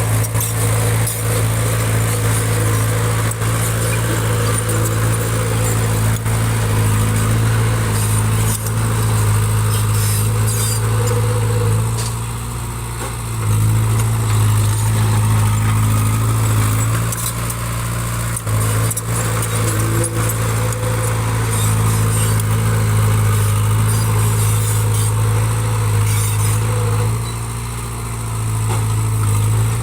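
Small bulldozer's diesel engine running steadily under load, easing off briefly twice, with a few scattered knocks from the machine at work.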